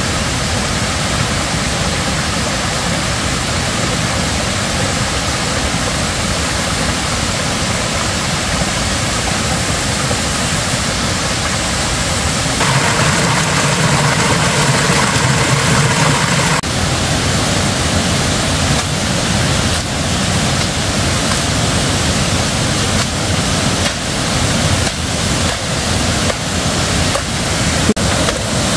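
Steady rush of a small forest waterfall and stream, louder for a few seconds in the middle. A few sharp knocks near the end, as a machete strikes bamboo.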